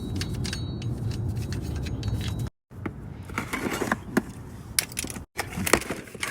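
A steady low hum with faint ticks, then, after a cut, scattered metallic clinks and scrapes of tools and brake parts being handled.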